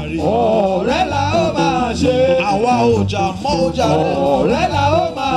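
Male lead singer singing with a live band, his voice sliding up and down through long phrases over steady bass notes.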